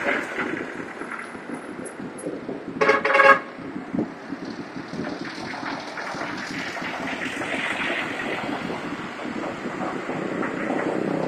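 Road traffic passing, engines and tyres, with a vehicle horn giving a short double honk about three seconds in, the loudest sound.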